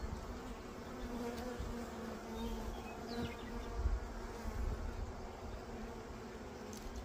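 Honeybees buzzing around an opened hive and its brood frame, a steady hum.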